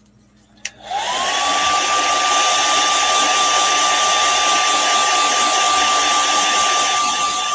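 Handheld hair dryer switching on with a click just under a second in. Its motor whine rises quickly in pitch and settles into a steady high whine over a loud rush of air as it dries fresh airbrushed paint on a fishing lure.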